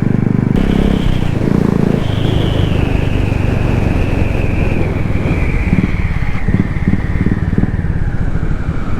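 Royal Enfield Classic 350's single-cylinder engine running while the motorcycle is ridden, with a faint high whine that slowly falls in pitch.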